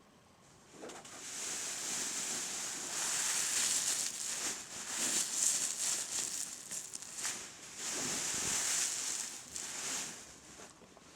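Rustling, scratching noise, as of something being rubbed or handled, waxing and waning from about a second in and dying away shortly before the end.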